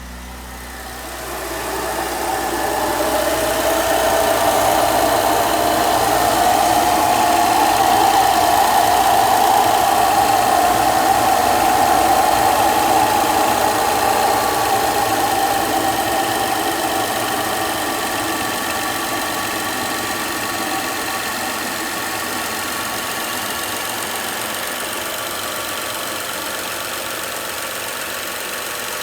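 2011 BMW X5 35i's turbocharged inline-six idling after a start-up, with a strange howl over it. The howl builds in the first few seconds, holds steady, then fades away over the next several seconds while the engine keeps idling.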